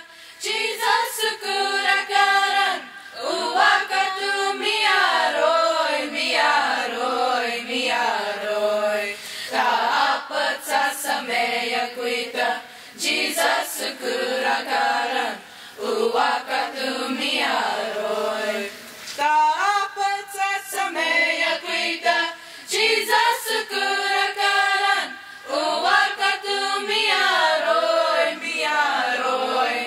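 A youth choir of mixed young voices singing a Comanche-language hymn unaccompanied, in long phrases with brief pauses between them.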